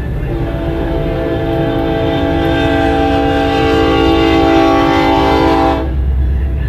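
Union Pacific 9017 locomotive's air horn sounding one long blast, a steady chord of several notes lasting about five and a half seconds, over the low rumble of the train as it reaches the crossing.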